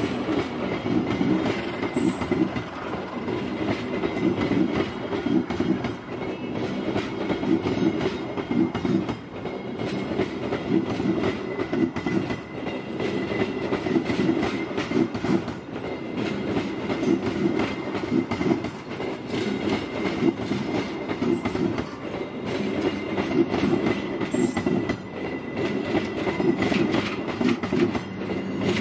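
Passenger train coaches rolling past close by: a steady rumble of steel wheels on the rails, with clickety-clack clicks from the wheels crossing rail joints and a faint thin whine from the wheels.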